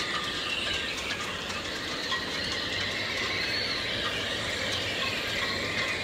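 Storm wind screaming through the masts and rigging of moored sailboats: two steady, high-pitched whistling tones, the upper one wavering a little in pitch, over a constant rush of wind.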